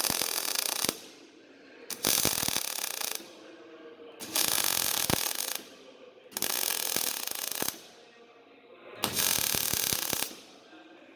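MIG/MAG welding arc crackling in five short bursts of about a second each, a couple of seconds apart: tack welds being laid on steel sheets.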